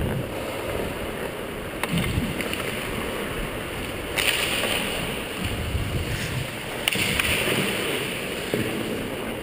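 Ice skate blades scraping and carving the ice during skating, with wind rushing over the microphone. Two louder hissing scrapes come about four and seven seconds in, and a sharp click near two seconds.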